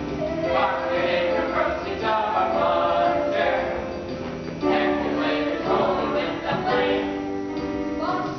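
Music with a choir of voices singing together in held, sustained notes.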